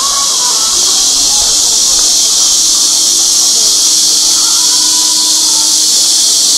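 Loud, steady insect chorus: an unbroken high hiss that neither pauses nor changes. Faint voices sit underneath.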